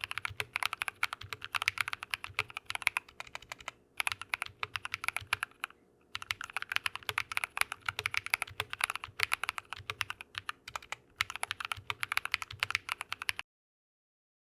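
Fast typing on a mechanical keyboard with Drop + Invyr Holy Panda tactile switches: a rapid stream of keystrokes with brief pauses about four and six seconds in, stopping abruptly about thirteen seconds in.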